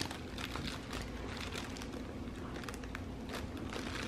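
Soft, continuous crinkling and rustling from a crinkle-lined plush dog toy box as a golden retriever puppy roots inside it with his nose.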